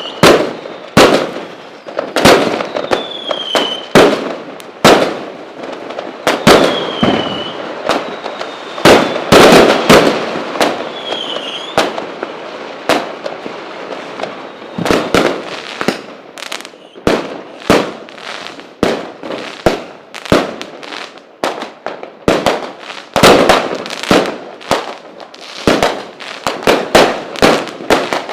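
Fireworks going off: sharp, irregular bangs with crackling between them, and a few short falling whistles in the first half. The bangs come faster and closer together from about halfway through.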